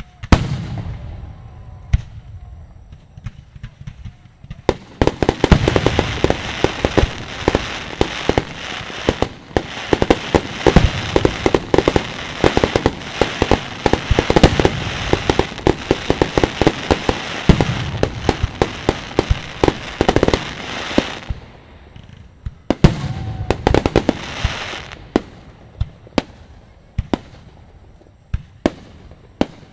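Aerial fireworks display: one big bang at the start, then from about five seconds in a dense barrage of bangs over continuous crackling lasting about sixteen seconds. A shorter burst follows, then scattered single pops near the end.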